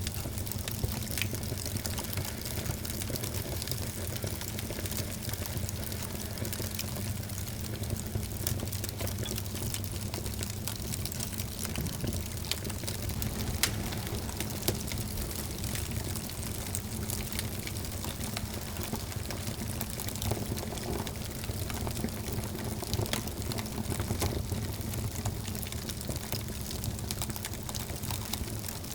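Wood fire burning in a fireplace: a steady hiss and low rumble of flames with constant small crackles and a few louder pops.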